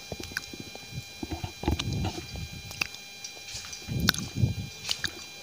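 Irregular light taps and slaps of flip-flop footsteps on a tiled floor, with small clusters of knocks about two seconds in and again near four seconds. A faint steady high whine sits underneath.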